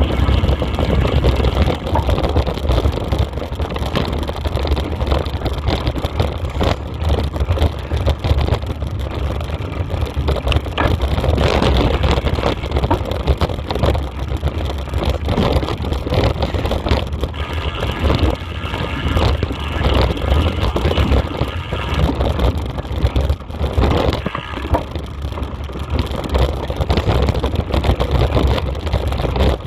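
Wind buffeting the microphone of a camera moving fast along a rough forest dirt trail, with frequent clicks and knocks as it jolts over the ground.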